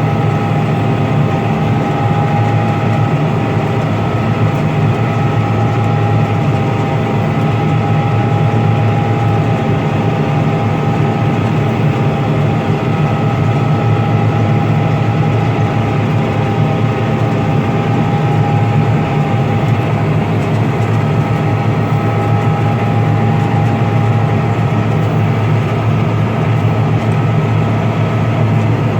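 John Deere 9600 combine running steadily while harvesting barley: a loud, even low drone with a steady whine over it.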